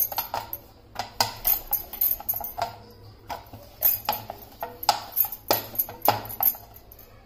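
A wooden rolling pin rolling out chapati dough on a metal rolling board, clicking and clacking against the metal about two or three times a second. The clicks thin out near the end.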